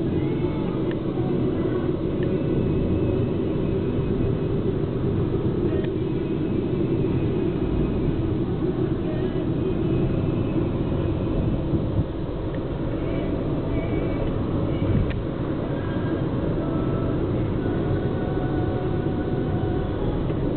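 Steady engine and road noise heard from inside a moving car's cabin, a low rumble at an even level throughout.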